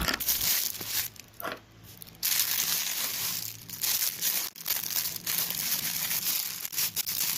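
Parcel packaging crinkling and tearing as it is opened by hand: dense rustling with small crackles, quieter for about a second near the start, then continuous.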